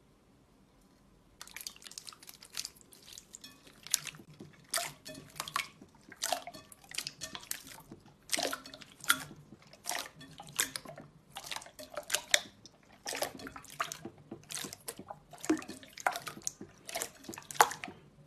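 Clear slime squelching and popping wetly as hands press and stretch it in a glass bowl: a quick, irregular run of crackling squishes that starts about a second and a half in.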